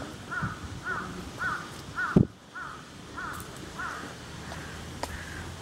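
A crow cawing in a quick series, about two caws a second, fading out near the end. One loud thump cuts in about two seconds in.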